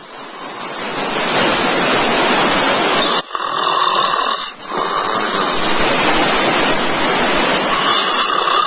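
A person snoring loudly: long, rasping snores that swell in strength, with short breaks between them.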